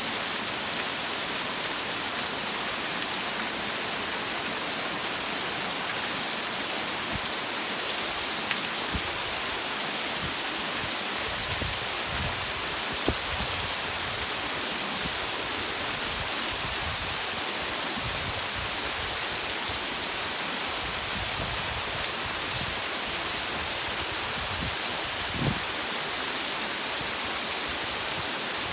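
Waterfall and river water rushing as a steady, even hiss, with two faint taps partway through.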